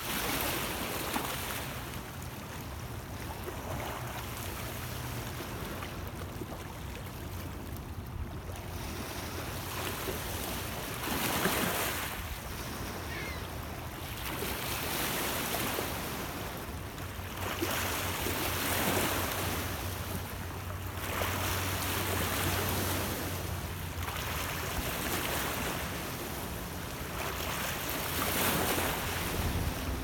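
Small lake waves lapping and washing over a stony shore, a swell of splashing every two to three seconds, over a steady low rumble of wind.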